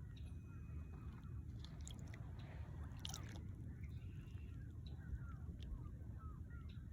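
Outdoor ambience: faint, short bird calls scattered through it over a steady low rumble, with a few faint clicks about three seconds in.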